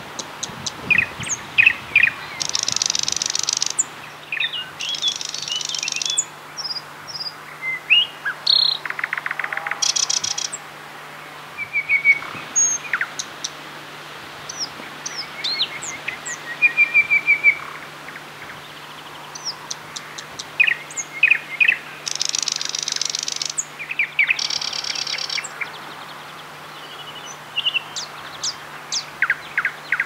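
Thrush nightingale singing a loud, varied song in short phrases: sharp whistled notes, fast clicking rattles and repeated-note trills, with brief pauses between phrases.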